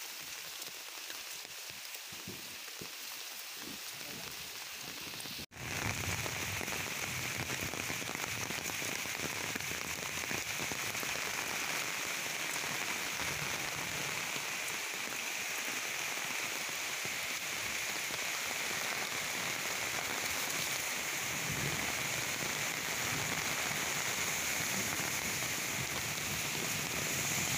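Heavy rain falling steadily on leaves and wet ground, an even hiss. It breaks off for an instant about five seconds in and comes back a little louder.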